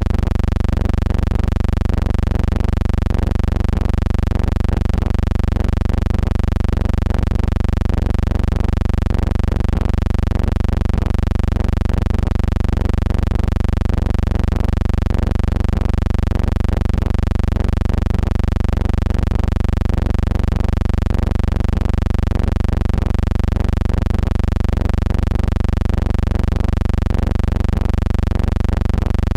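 Steady deep hum with many overtones, unchanging in pitch and level, with a faint regular pulsing in its loudness.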